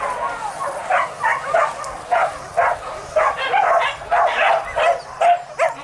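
Leashed hunting dogs yelping in a rapid string of short calls, about two a second.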